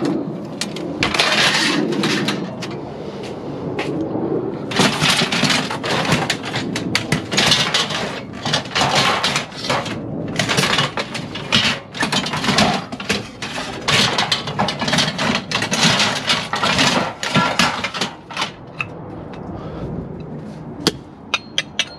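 Lengths of extruded 6063 aluminum clattering and scraping against one another as they are handled and slid into a pile. There is a brief burst about a second in, then a dense run of metallic knocks and rattles that thins out near the end, leaving a few sharp clicks.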